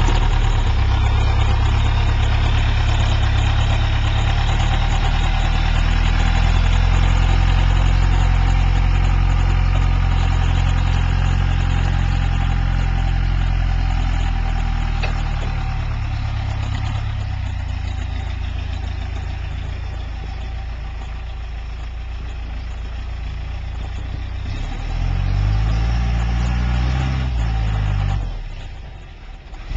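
Cummins 4BT four-cylinder turbo-diesel in a Jeep TJ running with a deep, steady drone that fades somewhat past the middle. Near the end the revs rise and fall a few times, then the sound briefly drops away.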